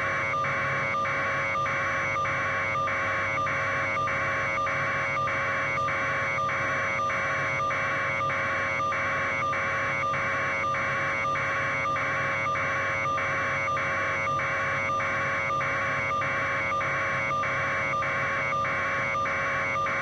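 Steady electronic buzz on the audio feed: a constant hum with a hissing pulse repeating about twice a second, evenly and without change.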